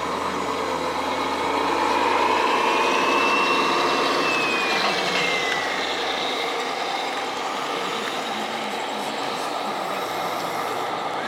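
Radio-controlled scale model truck (Mercedes-Benz Arocs) driving while towing a low-loader trailer: a motor whine rises in pitch and then falls away over the first six seconds or so, over a steady background hum.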